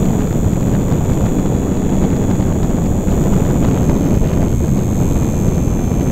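Wind buffeting the microphone of a camera riding on a HobbyZone Super Cub RC plane in flight, with the thin, high, steady whine of its electric motor and propeller. The whine drops slightly in pitch a little past halfway.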